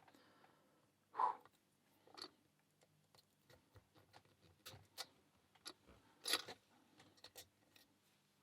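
Faint, scattered metallic clicks and taps of a pick and tension tool working a small 20 mm Stabilit A20 padlock, with two louder clinks about a second in and about six seconds in.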